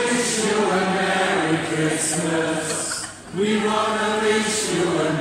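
A small mixed choir of men and women singing together in long held notes. The singing breaks briefly about three seconds in, then the next phrase begins.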